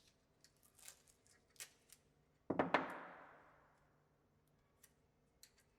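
Masking tape being handled and put on a flat drill bit to mark the drilling depth: light clicks and rustles, then one sharp rip about two and a half seconds in that fades away over about a second and a half.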